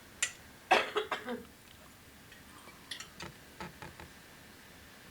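Scattered clinks and knocks of cutlery and dishes at a dinner table, with a louder short burst about a second in and a few lighter clicks around three seconds in.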